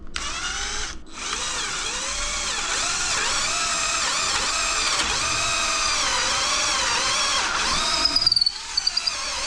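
Electric drill boring a hole straight through two clamped pieces of wood. It starts, stops briefly about a second in, then runs steadily with its pitch wavering under load, and cuts out near the end with a few short blips.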